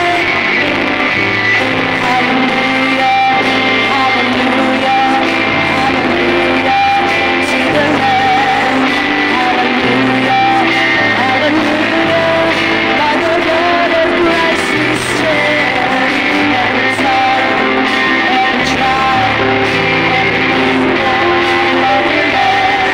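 Live worship band of electric guitar, bass guitar, drum kit and keyboard playing a song, with voices singing along.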